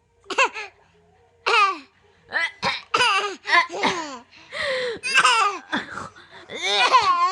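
Baby laughing and squealing in a run of short, high-pitched bursts.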